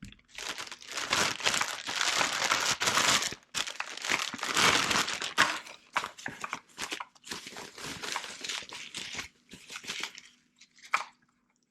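Plastic packaging crinkling and rustling as it is handled and pulled off a rifle scope. The crinkling is dense for about nine seconds, then thins to a few scattered rustles, with a sharp click near the end.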